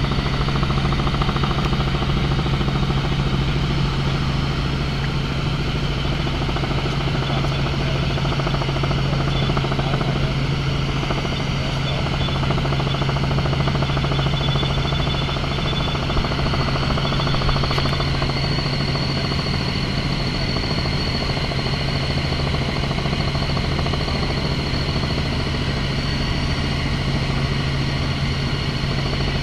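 Tour helicopter in flight: steady engine and rotor noise with a strong low hum and a fast, even chop.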